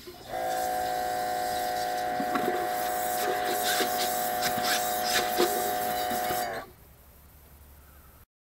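Pressure washer running with a steady hum for about six seconds while its spray spatters into a pot, then cutting off suddenly.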